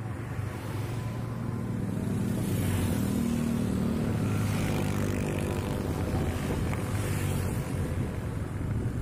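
A vehicle engine running steadily while driving along a road, with road noise and other vehicles passing, a rushing swell about three seconds in and again near the end.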